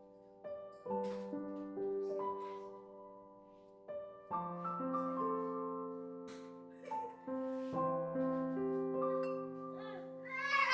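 Slow, gentle piano background music, with held notes struck one after another.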